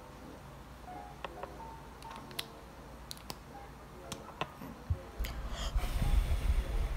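Handling noise of a BOYA BY-MM1 microphone as its furry windscreen is pulled off: scattered clicks and rubbing. About five seconds in, a loud low rumble of breath blowing straight into the bare mic.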